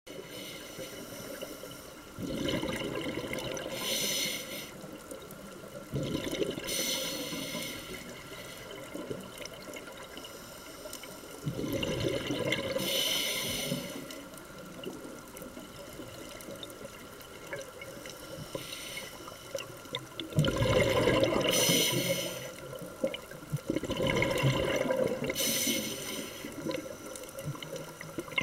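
Scuba diver's breathing heard underwater through the camera housing: about five long rushes of exhaled regulator bubbles, a few seconds apart, over a steady low underwater background.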